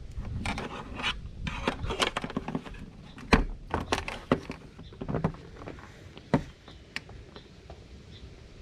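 Handling noise from the doorbell being put in place by hand: irregular clicks, knocks and scraping, with two sharper knocks about three and six seconds in.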